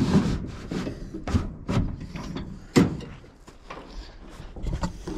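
Clicks and clunks from the freshly reassembled door of a Chevrolet C30 squarebody crew cab as its latch and handle are worked and the door is opened. There are several short knocks, the loudest a little under three seconds in.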